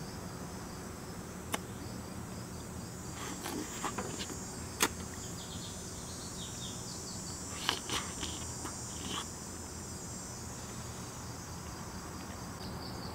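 Steady chirring of crickets or other insects, with a few short clicks and soft wet smacks as ripe mayapples are torn open and eaten, seeds and all.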